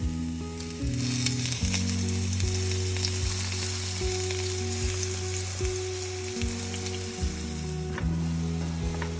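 Chicken of the woods mushroom frying and sizzling in a pan; the sizzle gets louder about a second in. Background music with a steady beat plays under it.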